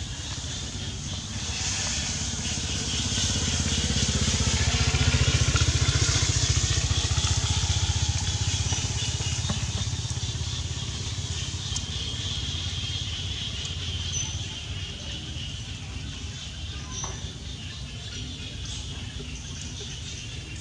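A motor vehicle passing by: a low engine rumble swells over the first few seconds, peaks about five seconds in, and fades away by about fourteen seconds, over steady outdoor background noise.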